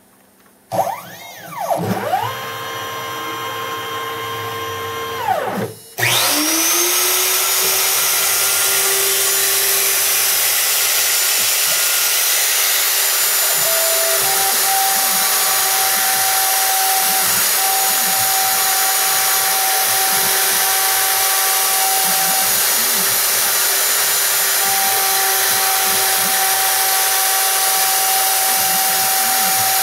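Homemade CNC router: a whine rises in pitch, holds and falls away, typical of the stepper motors on a rapid move. About six seconds in, the Bosch 1617 router spindle spins up, its tone climbing and settling at 25,000 RPM. It then runs steadily while a quarter-inch two-flute carbide upcut bit mills RenShape, and fainter stepper tones come and go and shift pitch as the axes feed.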